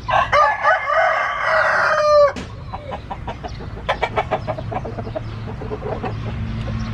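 A rooster crows once, one long call of about two seconds ending with a falling tail, then settles into a run of short, rapid clucks.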